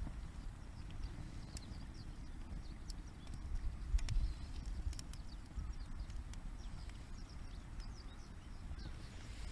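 Campfire crackling, with scattered sharp pops and clicks over a steady low rumble.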